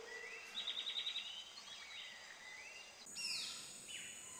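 Faint background ambience of birds chirping, with short rising trills and then a few quick falling chirps starting about three seconds in.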